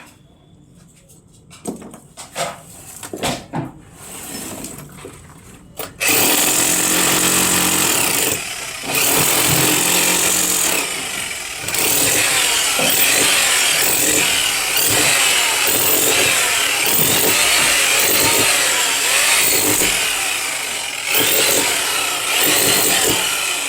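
A few light clicks and knocks, then about six seconds in a power tool starts and runs loudly, easing off briefly a few times.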